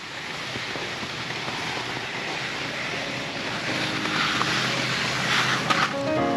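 Steady rushing noise that slowly grows louder, with quiet background music fading in during the second half.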